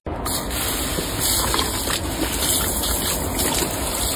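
Garden hose spray nozzle on its shower setting running steadily, the spray splashing on a German Shepherd's open mouth as it bites at the water.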